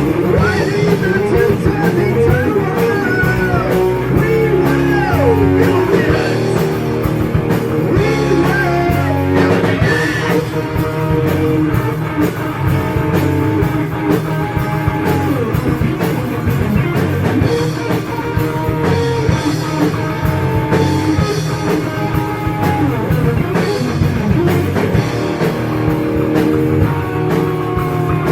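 Heavy metal band playing electric guitars over bass and drum kit, with a lead guitar bending notes and a long falling slide near the end.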